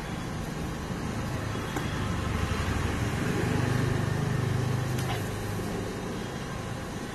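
Low engine rumble of a motor vehicle that grows louder in the middle and then fades, like one passing by.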